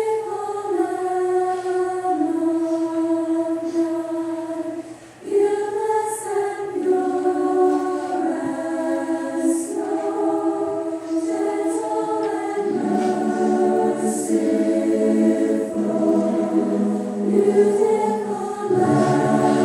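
A choir singing a slow hymn in sustained chords, with a short pause between phrases about five seconds in; lower voices fill out the harmony about twelve seconds in.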